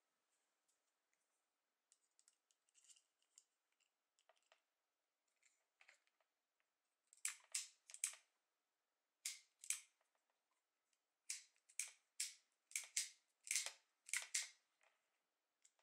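Sharp plastic clicks from a miniature circuit breaker being handled: a few faint ones at first, then a quick run of about a dozen louder clicks from about seven seconds in.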